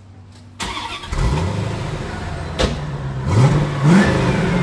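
C4 Corvette V8 starting about half a second in and settling into a steady idle, then briefly revved twice near the end. The mufflers are still on, so this is the exhaust before the straight-pipe delete.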